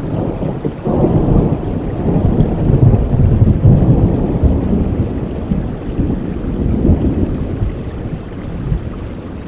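A roll of thunder over steady rain: the rumble swells about a second in, is loudest over the next few seconds, and slowly dies away.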